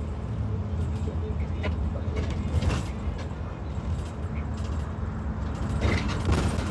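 2022 IC CE school bus's gasoline engine running steadily with a low rumble, on a bus that has an exhaust leak. Brief sharp clicks come twice, about two and a half seconds in and again near the end.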